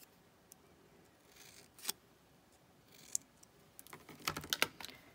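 Scissors snipping a dovetail notch into the end of a piece: a couple of isolated sharp snips, then a quick run of snips about four seconds in.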